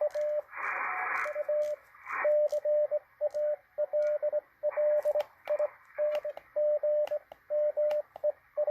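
Morse code (CW) signal from a shortwave SDR receiver's speaker: a single steady beep keyed on and off in dots and dashes, over receiver hiss. Bursts of static break in several times, along with a few sharp clicks.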